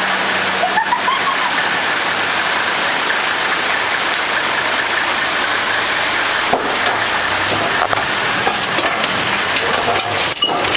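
A steady rushing hiss of water, with a Toyota four-wheel drive's engine running low underneath as it creeps across a bridge deck. A few sharp knocks come about six and a half and eight seconds in.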